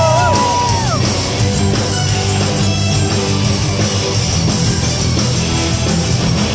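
Power metal band playing live at full volume: distorted electric guitars, bass and drums. A held melodic note glides down and stops about a second in, and the full band texture carries on steadily.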